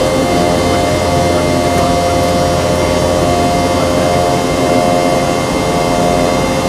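Cabin noise of a Boeing 717-200's rear-mounted Rolls-Royce BR715 turbofans, heard from inside the cabin: a steady, even rush with a few constant whining tones over it.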